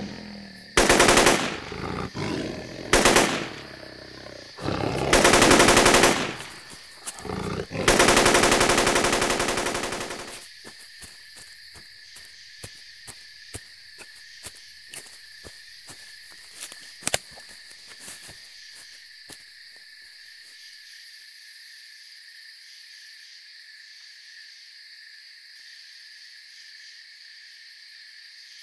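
Big-cat roars in a sound-effect attack, a run of loud drawn-out bursts over the first ten seconds. The roaring stops about ten seconds in, leaving a steady chirring of crickets with a few faint clicks that fade out.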